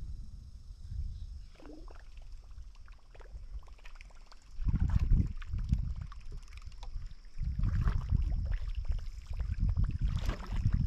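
Wind buffeting the microphone in uneven gusts, stronger about halfway through, with light water sounds and small knocks from the canoe.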